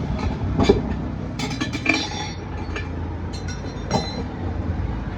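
Metal tools clinking and clanking against a motorcycle wheel rim as the tyre is worked off, in two clusters of ringing strikes about one and a half and three and a half seconds in, over a steady low rumble.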